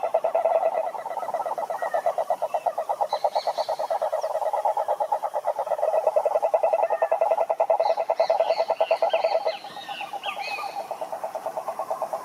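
Frogs calling in chorus: a fast, steady pulsed trill that runs on without a break, with higher chirping calls breaking in over it about three seconds in and again from about eight seconds in.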